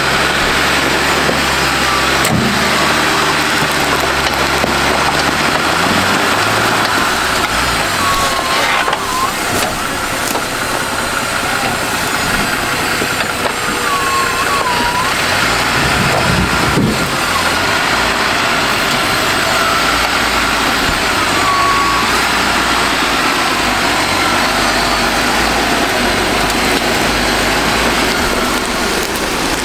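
Lifted Jeep's engine working under load as it crawls up a steep dirt hill climb. The engine note shifts up and down in the first few seconds, then gives way to a loud, even rushing noise of engine and tyres for the rest.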